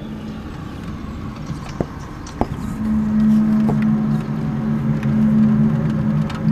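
An unexplained low, steady droning hum with two or three pitches held together, of the kind reported as mysterious 'strange sounds' from the sky. It fades just after the start and swells back in about three seconds in, with a couple of short clicks in the lull.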